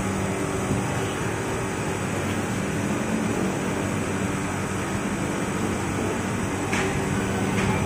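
Outdoor air-conditioner condenser units running: a steady hum from the compressors with fan noise.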